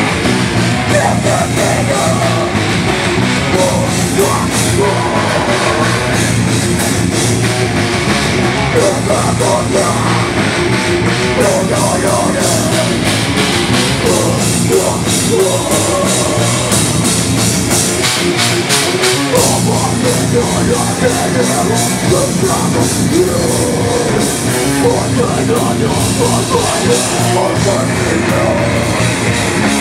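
Live hardcore punk band playing loud and fast: distorted electric guitars, bass and drums, with vocals shouted into microphones. The low end drops out for a moment a little past halfway.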